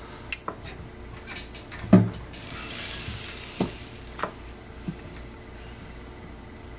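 Small metal hand tools clicking and clinking as they are handled on a jeweler's bench, with a dull knock about two seconds in that is the loudest sound, and a brief soft hiss around the middle.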